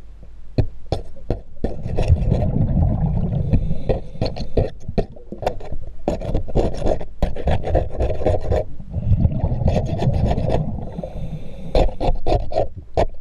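Underwater scraping: a metal scraper blade rasping and clicking in quick, uneven strokes against a boat hull around a round sacrificial zinc anode, clearing marine growth. Low rumbling swells come and go under the strokes.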